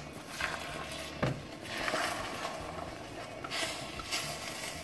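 Beaten eggs cooking in a hot stainless steel frying pan while wooden chopsticks push them around, with a faint hiss and a couple of light taps of the chopsticks against the pan, one near the start and one about a second in.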